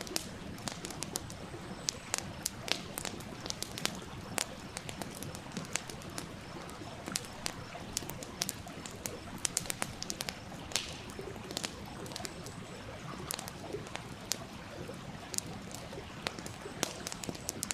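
Wood fire crackling, with frequent sharp pops and snaps scattered irregularly, over the steady rush of a flowing stream.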